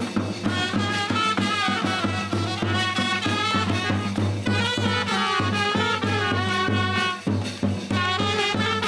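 A brass band playing a lively dance tune with a steady beat, trumpets carrying the melody.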